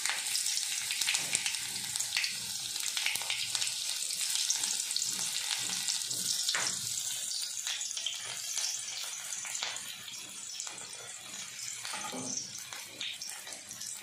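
Sliced shallots and mustard seeds frying in hot oil in an iron kadai: a steady sizzle with scattered crackles and pops, easing a little near the end.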